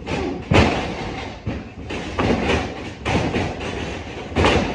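Footfalls and body impacts banging on a wrestling ring's floor, several heavy thuds at irregular intervals, the loudest about half a second in.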